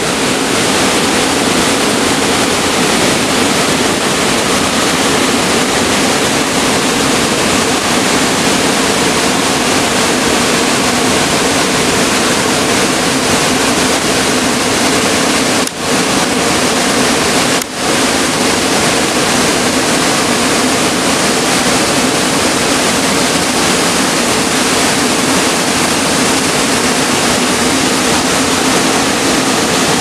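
Small waterfall pouring into a rock pool: a steady, loud rush of falling water that dips briefly twice near the middle.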